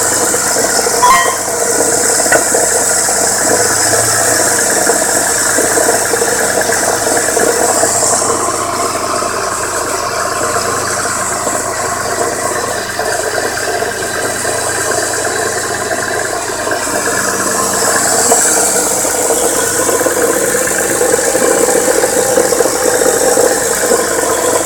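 1998 Ford Contour SVT's 2.5-litre Duratec V6 running steadily with a fast, continuous mechanical knocking: the engine knock the owner is showing.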